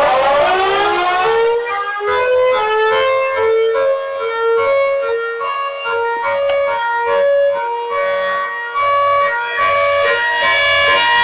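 Siren Head sound effect: a siren tone glides down at the start, then a slow tune of held, horn-like notes in a siren timbre plays, stepping from note to note, until it cuts off suddenly at the end.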